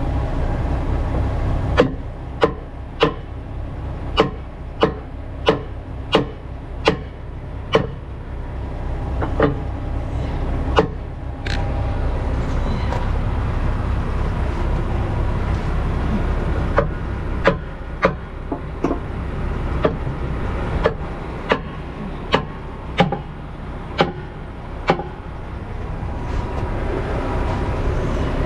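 A 4-pound sledgehammer hammering on an 18-wheeler's frozen drive-axle brakes to break them free, sharp ringing metal blows about one or two a second, in two runs of roughly a dozen strikes with a pause between. The truck's diesel engine idles steadily underneath.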